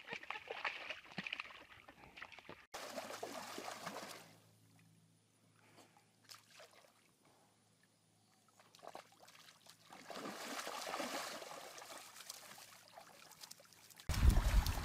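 Muddy water and wet mud sloshing and splattering as animals roll and wallow in it, with a nearly quiet stretch in the middle and a sudden louder section near the end.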